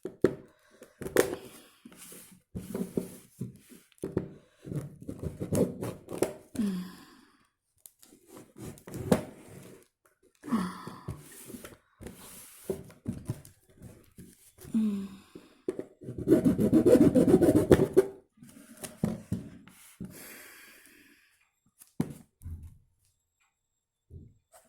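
Strong packing tape being pulled and torn off a cardboard box, in a series of irregular rips with rustling and knocks of the cardboard between them; the longest, loudest rip comes about two-thirds through.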